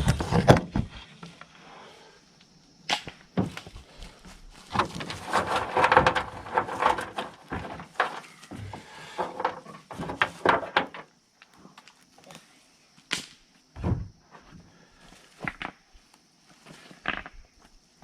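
Thorn bushes being cut back by hand: irregular snaps, cracks and rustling of branches, in clusters with short gaps between. A faint steady high-pitched tone joins about halfway through.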